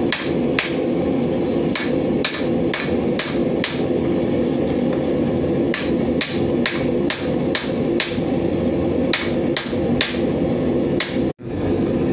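A small titanium hammer striking a glowing-hot block of titanium on a steel anvil, in runs of blows about two to three a second with short pauses between runs, over a steady hum. The sound breaks off abruptly near the end.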